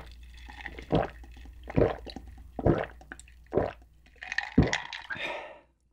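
Close-miked gulping of an iced drink from a jar: about five loud swallows roughly a second apart, with a noisier stretch near the end before the sound cuts off.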